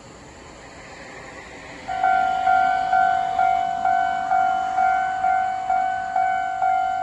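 Railway level-crossing warning bell starting about two seconds in and ringing steadily at about two dings a second, each ding fading before the next: the signal that a train is approaching and the crossing is closing. Before it, only a faint background noise slowly rising.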